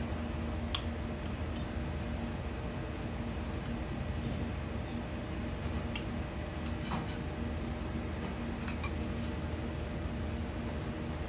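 Steady low hum of kitchen equipment, with a few faint clinks of a metal spoon against a small saucepan and a lacquer bowl as sauce is spooned out.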